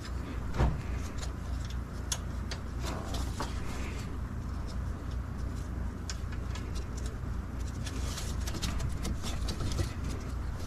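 Hand tools and metal fittings clicking and tapping as AC lines are refitted to a car's condenser, with a louder knock about half a second in, over a steady low hum.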